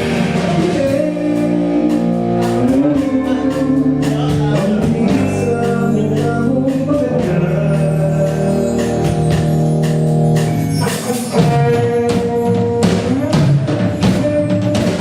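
Live band playing a rock song: a singer holding long notes over electric guitar and a drum kit, played loud through a PA.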